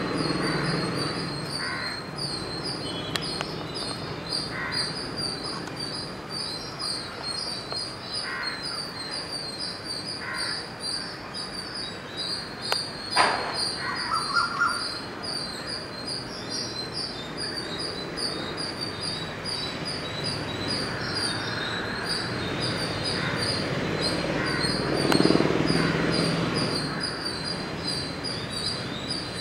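A small bird chirping over and over, a short high note about two or three times a second, over a steady background hum. A single sharp click about halfway through, and a swell of louder low noise a few seconds before the end.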